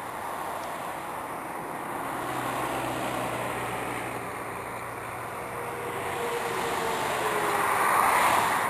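A passing vehicle. Its steady noise slowly swells to a peak near the end and then fades, with a faint tone that drops slightly in pitch as it nears.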